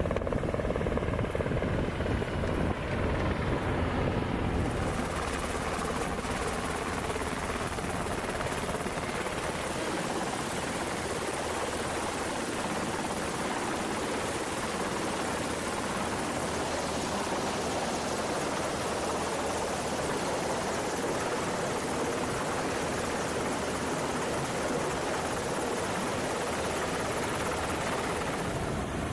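MH-60 Seahawk helicopter running close by, a steady dense rotor and engine noise. About four to five seconds in the sound brightens as it comes close overhead, and a thin high steady whine joins it.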